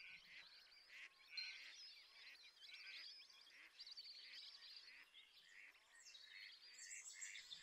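Faint, continuous chatter of many wetland birds calling at once, duck quacks among the calls.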